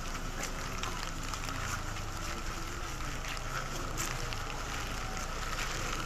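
Steady rain, with scattered drops tapping, over the low hum of a small car engine moving off slowly.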